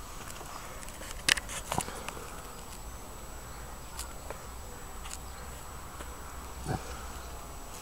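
Quiet outdoor ambience with a low steady rumble, broken by a few short sharp clicks and knocks, the loudest pair about a second and a half in.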